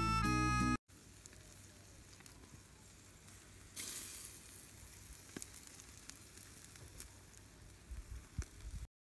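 Brief music in the first second, then whole chicken grilling in a wire grill basket over hot charcoal: a steady sizzling hiss with scattered crackling pops, louder from about four seconds in. It cuts off abruptly just before the end.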